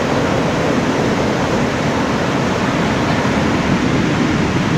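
Heavy ocean surf: large waves breaking and whitewater rushing shoreward, a steady, unbroken wash of noise.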